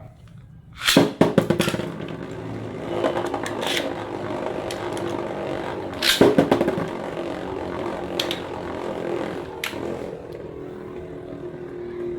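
Beyblade tops launched into a plastic stadium. A rapid rattle of clicks comes about a second in and again about six seconds in. Between them runs a steady spinning whir, with a few sharp knocks of tops striking.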